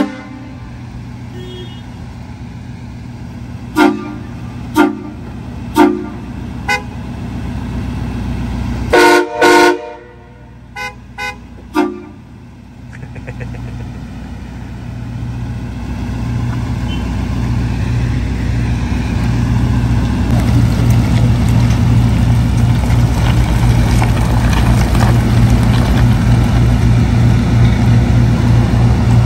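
Pickup truck horn tooting in a string of short honks, with a longer double blast in the middle. After that a truck engine starts running in a low, steady drone that grows louder over several seconds and then holds.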